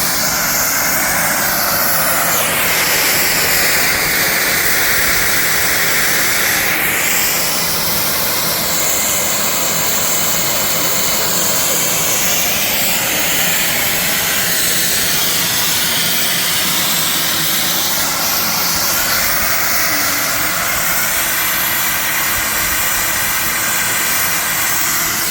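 Sound-fitted model Class 55 Deltic locomotive playing its diesel engine sound through its onboard speaker: a steady, loud engine noise that shifts in pitch a few times, with a brief high whistle-like tone about a third of the way through.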